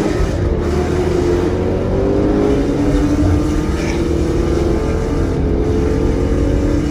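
Car engine pulling hard under full throttle, heard from inside the cabin, its pitch climbing slowly as the car accelerates.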